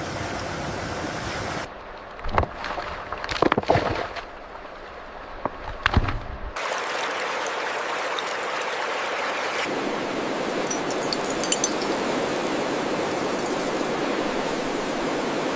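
Steady rushing noise like surf for a moment; then several sharp knocks and clatters, loudest around the middle; then a steady rush of pouring, splashing water that runs on to the end.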